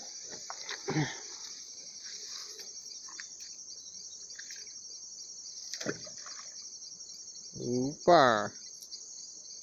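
Steady high-pitched chorus of insects trilling, with a couple of soft knocks; near the end a man shouts once.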